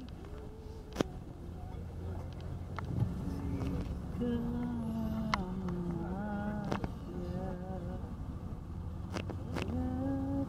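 Inside a moving tour coach: a steady low rumble from the engine and road, with passengers talking indistinctly in the background from about three seconds in and a sharp click about a second in.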